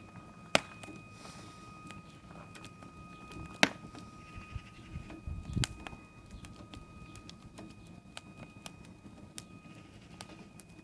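Wood fire crackling with irregular sharp pops, two loud ones about half a second and three and a half seconds in, over a faint steady high whine.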